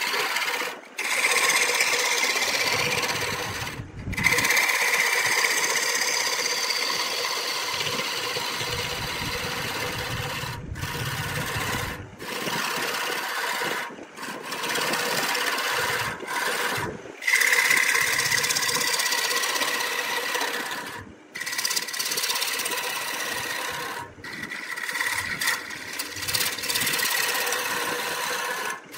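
Wood lathe spinning a turning while a hand-held turning tool cuts into its end grain, a continuous rasping cut over a steady running tone. Several brief sudden drops break it along the way.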